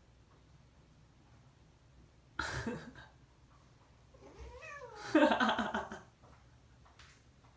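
Calico house cat meowing: a short sharp cry about two and a half seconds in, then a long, loud meow that rises and falls in pitch from about four seconds in.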